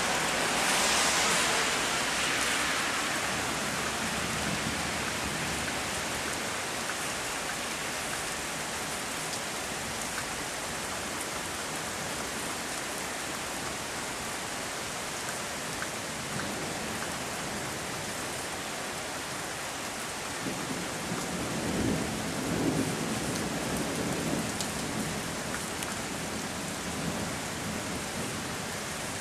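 Heavy rain falling steadily in a thunderstorm, heaviest in the first few seconds. Thunder rumbles low about twenty seconds in.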